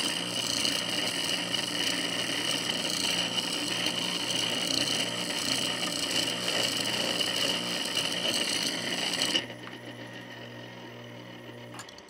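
Boiler circulating pump running very loud, a rough mechanical noise with a steady high whine, the sign of a pump that is on its way out and will fail soon. About nine and a half seconds in the loud noise drops off suddenly, leaving a quieter steady low hum.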